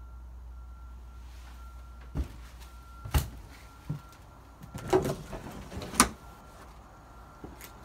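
Handheld walk through an empty room: about six sharp knocks and thumps of footsteps and a door being pushed, the loudest two near the middle. Behind them a faint high beep repeats in short dashes.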